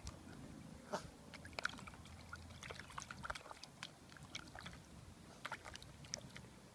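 Bulldog puppy splashing and biting at the water in a shallow plastic tub: an irregular run of small splashes and wet clicks.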